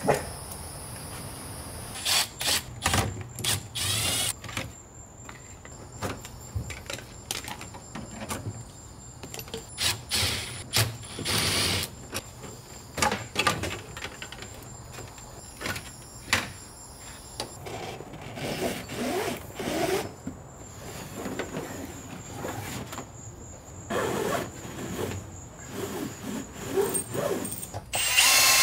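Short bursts of a cordless drill running, mixed with knocks and clatter of tools and parts during hands-on work in a car's interior.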